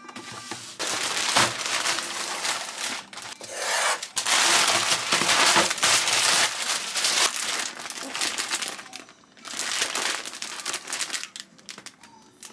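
Plastic candy bag crinkling and rustling as it is handled, in a dense irregular crackle that breaks off briefly about three-quarters of the way through and is softer near the end.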